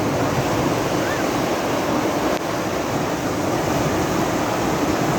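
Floodwater rushing steadily, a continuous loud wash of moving water.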